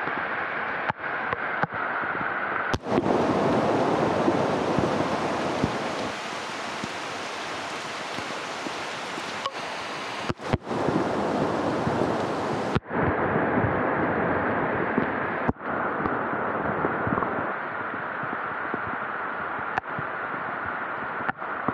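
Rain falling steadily, a continuous even hiss of rainfall, fuller and louder through the middle stretch and briefly cutting out a few times.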